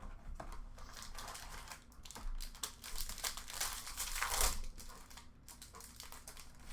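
Plastic wrapping of a hockey card box and its packs crinkling and rustling as they are handled and opened. The crackling comes in irregular bursts and is busiest about halfway through.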